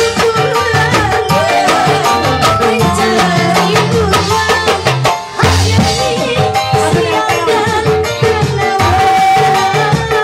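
Live dangdut band music: hand drums keep a busy beat under a melody line, with a brief drop in level about five seconds in.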